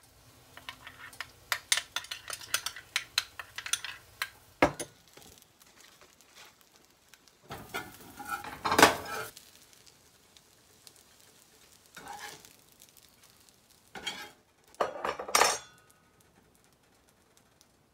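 A metal spoon clinks rapidly against a small glass bowl as it stirs. Then a metal spatula scrapes and clatters in a cast-iron skillet while lifting out pancakes, in a few separate bursts, the loudest about nine seconds in, with a light sizzle.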